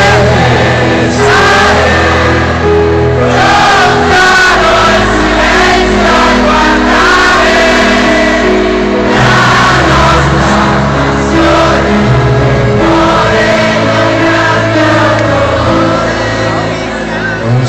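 A live rock band playing a ballad through a stadium PA, with piano and guitars over sustained bass notes. Many voices sing the melody together.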